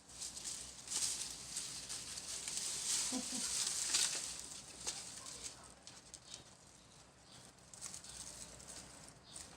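Dry grass and leaves rustling and crackling as the cats scuffle through them, loudest in the first half, with a short low sound about three seconds in.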